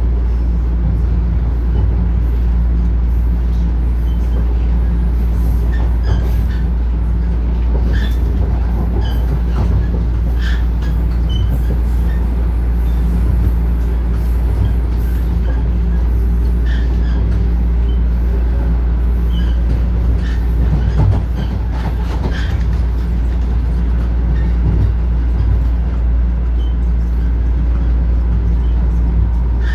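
Inside a TTC Line 1 Toronto Rocket subway car running at speed on surface track: a steady low rumble of wheels on rails, with a steady hum and scattered clicks and clacks.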